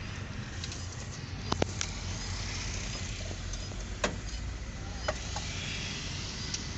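Hino 500 FL 235 JW truck's diesel engine running steadily as the truck moves slowly, heard from inside the cab. A few sharp clicks and knocks sound over it, a quick cluster about one and a half seconds in and single ones around four and five seconds.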